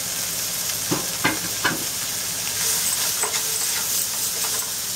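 Chopped onions with ginger and garlic sizzling in a little oil in a nonstick wok, stirred with a wooden spatula. The spatula gives a few short scrapes and taps, a cluster of them about a second in and more around three seconds.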